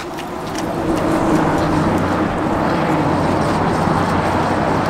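Steady rushing of passing road traffic, with a low engine hum beneath it. It swells over the first second and then holds level.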